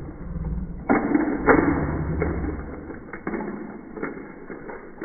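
Toy monster trucks crashing into each other: a string of muffled knocks and clacks, the loudest about a second and a half in, over a low rolling rumble.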